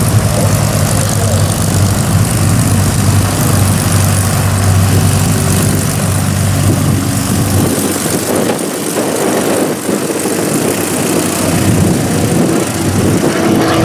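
Fairchild PT-19 trainer's inverted inline six-cylinder engine and propeller running at taxi power as the plane rolls close past. Its deep low drone drops away about eight seconds in, and the engine stays loud.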